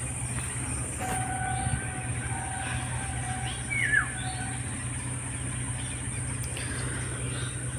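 Outdoor background noise: a steady low rumble under a thin steady high whine. A long even tone sounds from about one second to five seconds in, and a short falling chirp comes about four seconds in.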